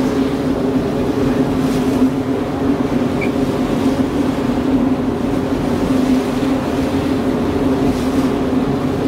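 Whale-watching boat's engine running at a steady drone, with a constant hum, over the noise of wind and choppy water.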